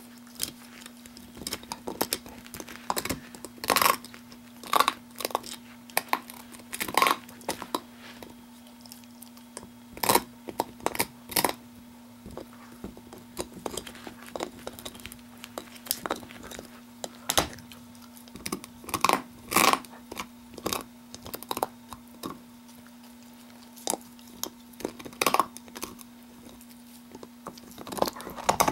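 A Blue Heeler (Australian cattle dog) gnawing on a big bone: irregular sharp crunches and scrapes of teeth on bone, coming in clusters with short pauses between. A steady low hum runs underneath.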